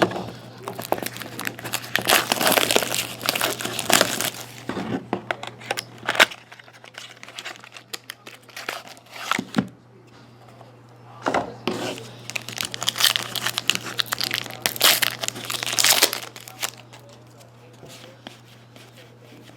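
Trading card packaging being opened by hand: crinkling and tearing of a pack wrapper, in two long bouts with a quieter spell between, over a faint steady low hum.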